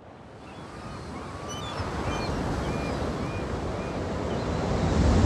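Sea surf and wind fading in from silence and growing steadily louder, with a few faint high bird calls over it in the first few seconds.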